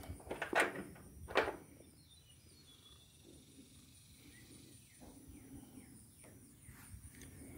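Two loud knocks, under a second apart, then a quiet stretch inside a shed.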